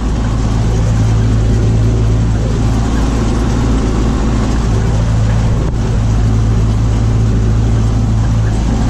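Tractor engine running steadily under load while driving a stalk shredder through sunflower stalks, with an even low hum.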